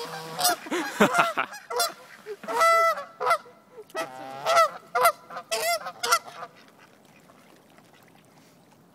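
Geese honking, a rapid run of loud, repeated honks that stops about six and a half seconds in.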